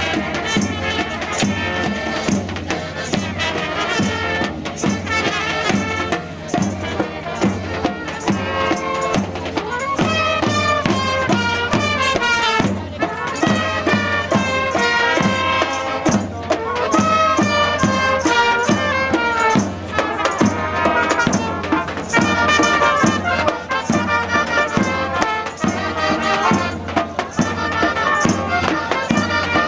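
Small brass band of trumpets, trombone and horns playing a tune over a steady beat.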